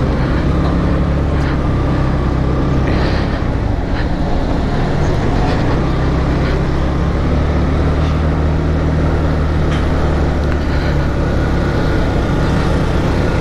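Italika DS 150 scooter's single-cylinder four-stroke engine running at a steady speed, a constant low hum.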